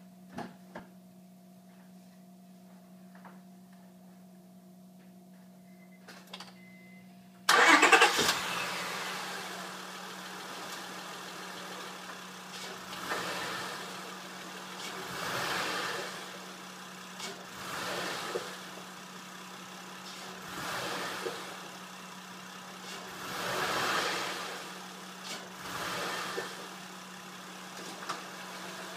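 A Honda Accord V6 engine starts with a sudden loud burst about seven and a half seconds in, after a few faint clicks, then runs and is revved in short blips every two to three seconds. The blipping is the usual way of checking for engine movement on worn motor mounts, which the owner suspects.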